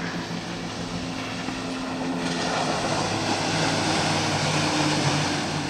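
Outboard motor of a rigid inflatable boat running at speed, a steady engine drone that grows louder as the boat comes close. About two seconds in, the rush of water thrown off the hull and wake grows along with it.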